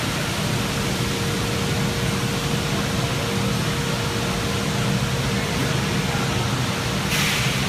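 Steady industrial background hum and hiss, with a faint steady tone held over it. A short burst of hiss comes in near the end.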